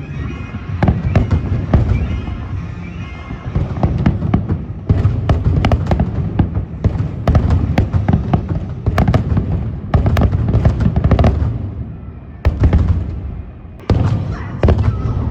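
Fireworks bursting in quick clusters of sharp bangs and crackles over a low rolling rumble. The bangs pause briefly, then start again in new volleys.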